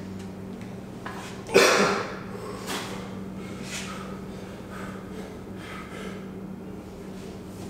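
A lifter's sharp, forceful exhale about a second and a half in, followed by several quieter breaths, over a steady low hum.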